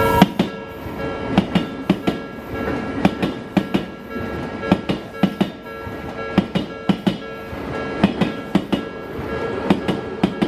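Odakyu Line commuter train passing over a level crossing, its wheels clacking irregularly over the rail joints, with the crossing's warning bell ringing steadily throughout.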